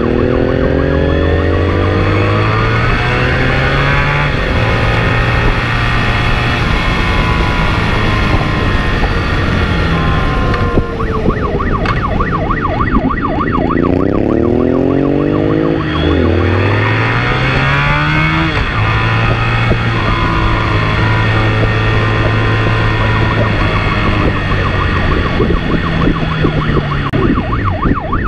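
Motorcycle engine accelerating hard: its pitch climbs for several seconds and drops sharply, twice, with steadier running between, over heavy wind and road noise.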